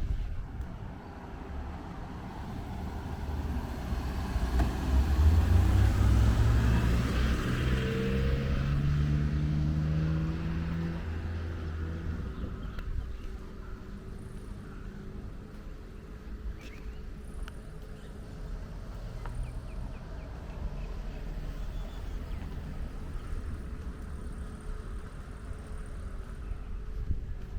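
A car drives past, its engine climbing in pitch in steps as it accelerates, loudest about six seconds in and fading away by about twelve seconds. A quieter street background follows.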